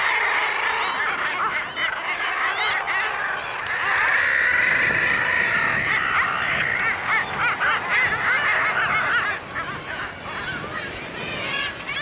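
Crowded seabird colony calling: many birds at once, their calls overlapping into a continuous chorus that thins a little after about nine seconds.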